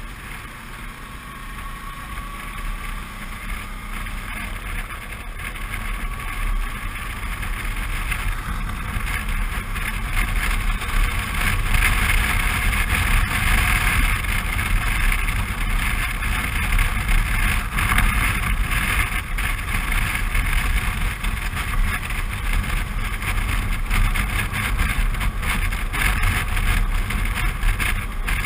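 Suzuki V-Strom 650 motorcycle's V-twin engine running at road speed, mixed with wind rushing over the microphone. The roar builds up over several seconds about a third of the way in, then holds steady.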